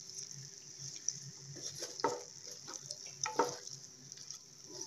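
A spatula stirring boiled eggs, sliced onions and thick masala in a kadhai, with irregular scrapes against the pan over a light, steady frying sizzle.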